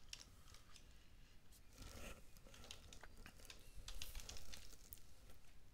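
Faint, irregular keystrokes on a computer keyboard as a name is typed into a text field.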